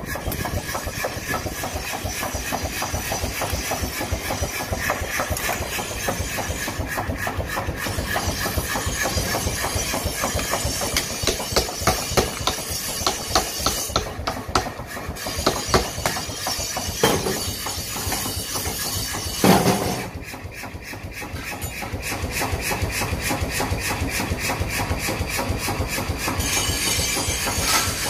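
Belt-driven mechanical power hammer running, its ram striking a red-hot piece of steel bearing race on the anvil in a rapid, regular clatter of blows. There is one louder bang about two-thirds of the way through.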